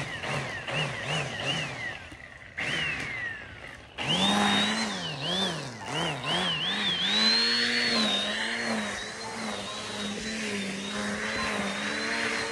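Corded electric string trimmer's motor, revved and released over and over so its whine climbs and sags several times a second, then held at full speed and running steadily from about seven seconds in.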